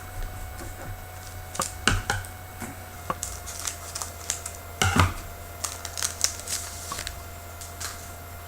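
Hockey trading cards being handled and flipped through: a scattered run of light clicks and snaps, the loudest about two and five seconds in, over a steady electrical hum.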